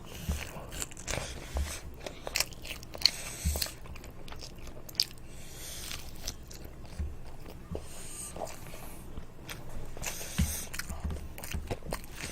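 A child biting into and chewing toast, with irregular crisp crunches and mouth sounds.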